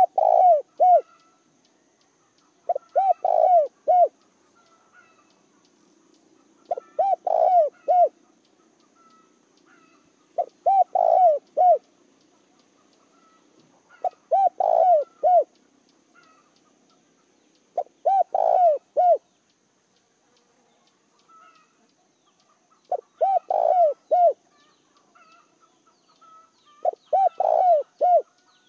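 Spotted dove cooing: a phrase of four or five short coos, repeated about every four seconds, eight times over. This is the call a caged decoy dove gives to draw in wild doves.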